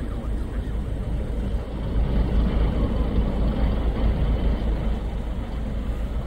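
A steady low rumble with a faint noisy haze above it.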